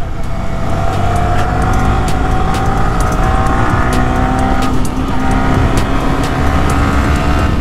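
Motorcycle engine running under throttle, its pitch climbing slowly, with a brief dip about five seconds in before it picks up again.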